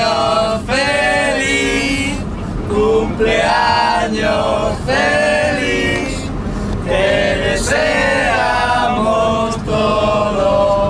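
Several men singing together, with long held notes over a steady low hum.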